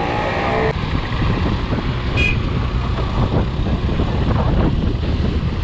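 Motorbike riding in road traffic: steady engine and wind rumble, with a short high beep about two seconds in.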